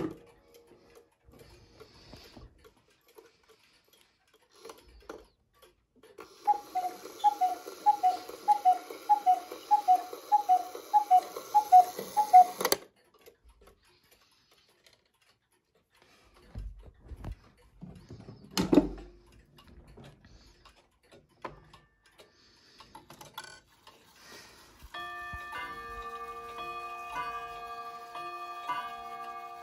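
Mechanical clocks ticking. About six seconds in, a wooden cuckoo clock strikes the hour: about a dozen quick two-note cuckoo calls over some six seconds, over the hiss of its bellows. It is followed by a single thump, and in the last five seconds a pendulum wall clock starts its chime, with rods struck in a steady rhythm whose notes ring on.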